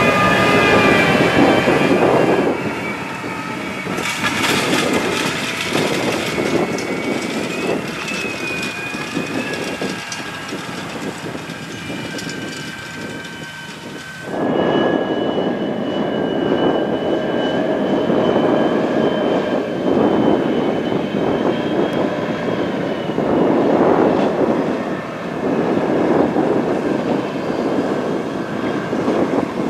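Large farm tractors pulling cultivators through stubble: the diesel engines run steadily under load over the rumble and rattle of the cultivator frames and tines in the soil. The sound changes abruptly about two and a half seconds in and again about fourteen seconds in.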